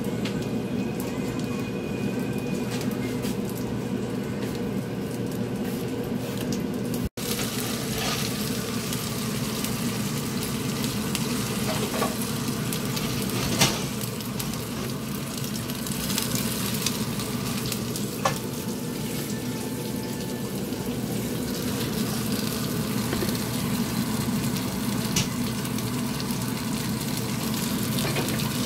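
Egg-battered cod fillets sizzling steadily in oil in a frying pan, with a few sharp clicks of a metal spatula against the pan.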